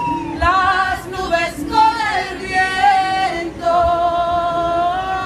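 A woman singing live, holding long notes that bend and slide in pitch, over acoustic guitar.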